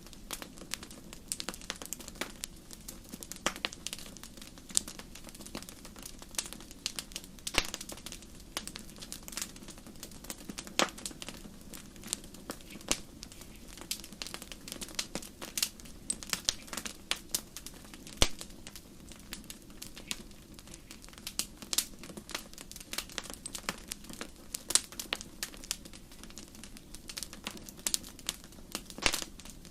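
Campfire crackling: irregular sharp pops and snaps of burning wood, several a second, over a soft steady hiss of the flames.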